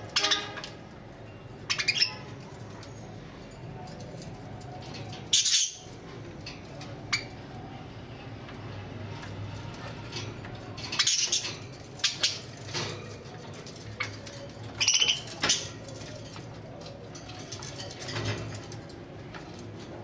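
Budgerigars chirping in short, scattered bursts a second or few apart, over a low steady hum.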